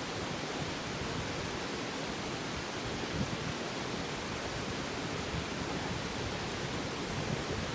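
Steady rushing of a river or stream running close by, an even, unbroken noise.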